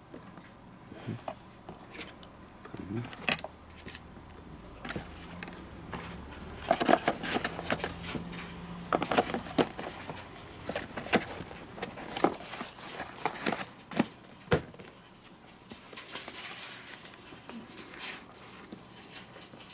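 Cardboard product box being packed and closed by hand: scattered clicks, taps and rustling as loose batteries and a meter go into the box and the lid folds shut.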